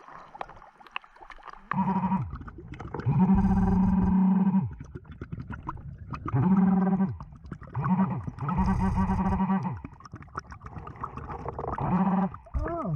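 A diver breathing underwater through a Blu3 Nemo regulator: a run of buzzing, bleat-like tones, each half a second to a second and a half long, with a low rumble of bubbles under each breath.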